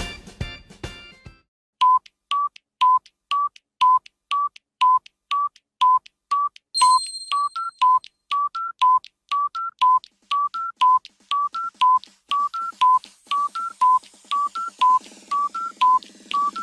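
Countdown timer sound effect: short electronic tick-tock beeps alternating between two close pitches, about two a second, counting down the guessing time. The tail of a music clip ends in the first second and a half, and a brief high chime sounds about seven seconds in.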